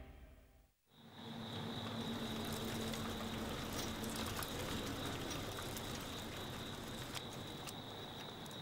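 Music fades out in the first second. After a brief gap, a steady background hiss takes over, with a thin constant high-pitched tone and a few faint ticks.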